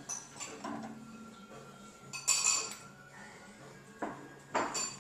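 Dishes and cutlery clinking as they are taken out of a dishwasher and handed over, with a loud ringing clink about two seconds in and two more near the end.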